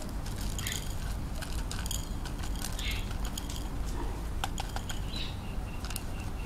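A soft plastic nursery pot being squeezed and flexed by hand to loosen a potted cactus, giving irregular crinkles and small clicks, with bits of dry soil and pumice dropping into a bowl. A steady low hum lies underneath.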